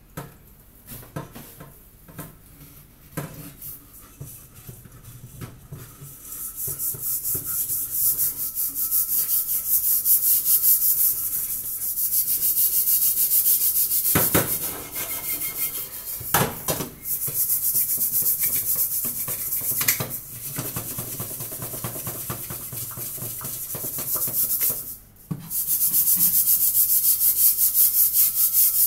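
The blackened bottom of a steel cooking pot being scrubbed hard with a paste of baking soda, toothpaste, flour and vinegar, a fast rhythmic rasping rub. A few light knocks of the pot come first; the scrubbing starts several seconds in and breaks off briefly near the end.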